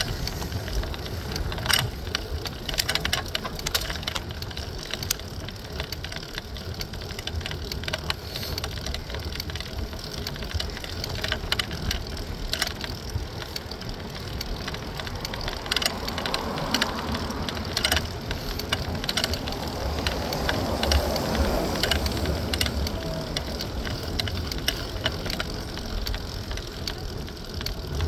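An Oslo Bysykkel city bike being ridden over city streets: a steady low rumble of road and wind noise with frequent sharp rattles and clicks from the bike, and a swell of louder noise around the middle.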